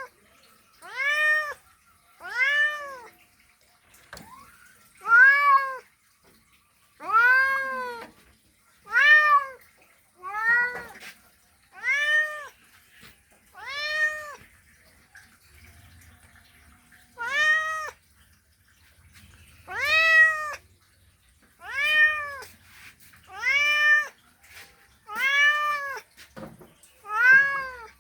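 A male cat calling to a female with repeated meows, about fourteen in all, each call rising and then falling in pitch. They come roughly one every one and a half to two seconds, with a pause of about three seconds midway.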